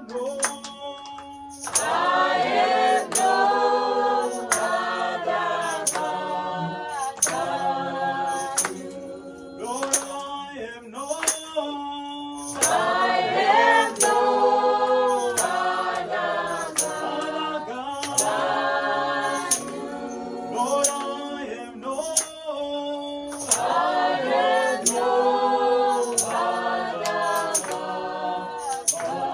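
A group of voices singing a worship song in phrases of a few seconds, with short breaks between them, over a steady percussive beat.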